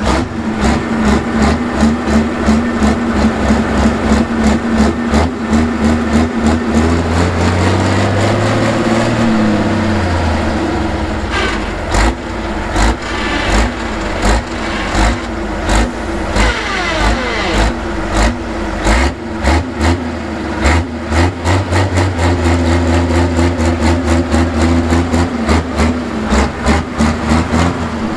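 Pro Stock pulling tractor's diesel engine running at a rough idle with its exhaust stack smoking. It is blipped up and back down once about eight seconds in, then runs with a stronger note near the end.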